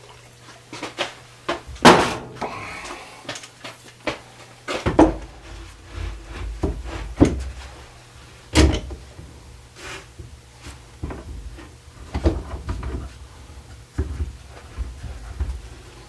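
Irregular knocks and clacks of wooden chair parts and clamps being handled and fitted while a freshly glued chair is clamped together, with two louder knocks about 2 and 8 seconds in.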